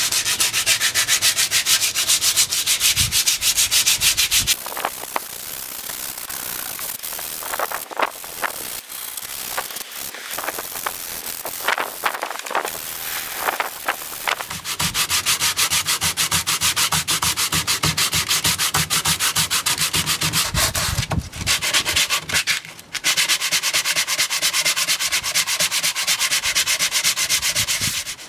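Sandpaper rubbed by hand over weathered teak in fast back-and-forth strokes, sanding back the grey, weathered surface of the bench rail. The strokes go quieter for about ten seconds a few seconds in, then come back louder with a brief pause near the end.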